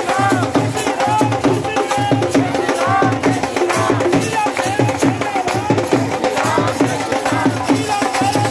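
Music: a fast, steady drum beat with a bending melody line over it.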